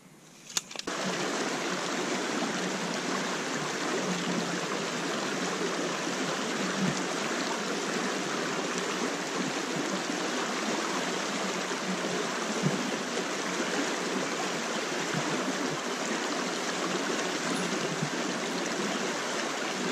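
A shallow trout stream rushing over riffles: a steady, even rush of water. It starts with a brief click about half a second in.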